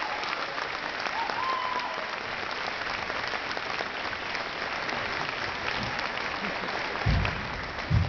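Crowd applauding, a steady dense clatter of many hands clapping, with two dull low thumps near the end.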